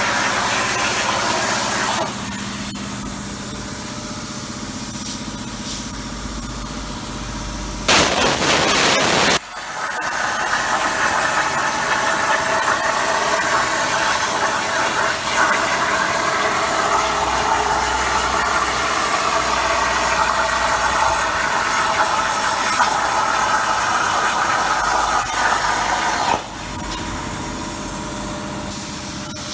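Mini CNC plasma cutter cutting sheet metal: a steady machine hum, a loud burst of hiss for about a second and a half about eight seconds in, then a steady hiss of the cutting arc that cuts off suddenly about twenty-six seconds in.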